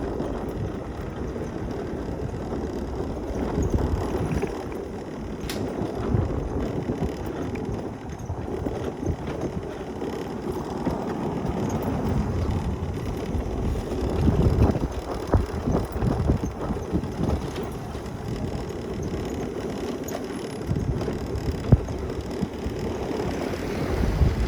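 Mobility scooter driving along a path: a steady rumble of its wheels and electric drive, with occasional short knocks and rattles, louder for a stretch in the middle and again near the end.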